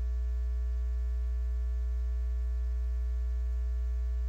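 Steady low electrical hum on a broadcast audio feed, with faint steady higher tones above it.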